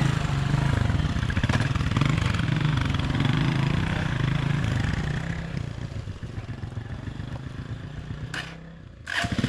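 Motorcycle engine running steadily as the bike rides along. The sound grows softer about six seconds in and breaks off briefly near the end.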